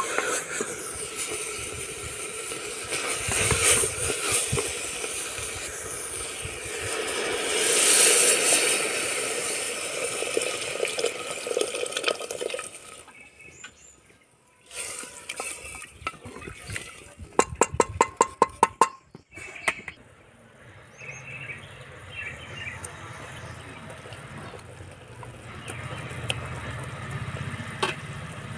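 Slotted spatula stirring greens and spices in liquid in a pot, a loud, watery churning and scraping. Near the middle comes a quick run of ringing metal taps, then it goes quieter.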